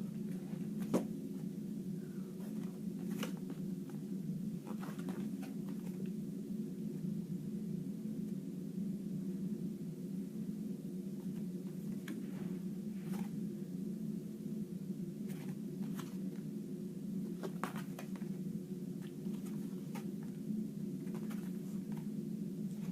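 A steady low hum with scattered faint clicks and taps at irregular intervals, the sharpest about a second in.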